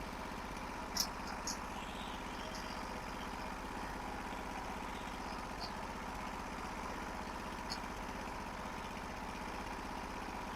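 Norwood HD36 portable sawmill's engine idling steadily between cuts, with a few faint clicks.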